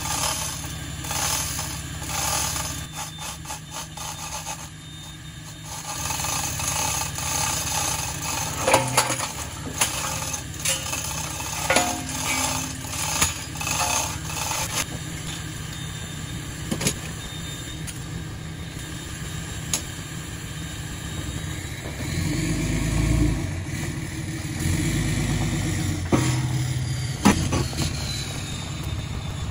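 A steel skid-steer quick attach being lifted on a truck-mounted gin pole: fast rhythmic clicking from the hoist at first, then scattered sharp metal clanks as the chained plate is handled. An engine runs steadily underneath and gets louder about three quarters of the way through.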